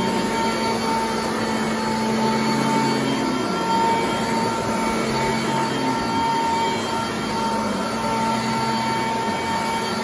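Sanitaire commercial upright vacuum running with a steady high motor whine as its brush roll works through frieze carpet. A lower tone under the whine shifts as it is pushed back and forth.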